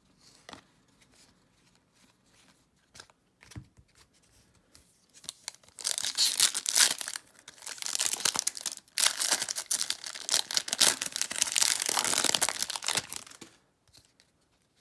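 Foil wrapper of a Topps baseball card pack being torn open and crinkled by hand. It starts about five seconds in, with a short break near the middle, and stops a second before the end. Before it there are only a few faint handling clicks.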